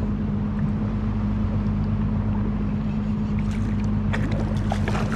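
A boat's engine running with a steady low hum that does not change in pitch. A few short crackly clicks or splashes come in over it in the second half.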